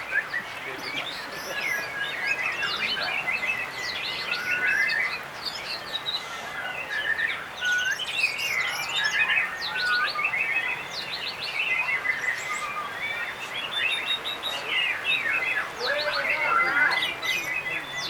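White-rumped shamas (murai batu) singing at once: a dense, unbroken run of overlapping whistles, trills and chirps.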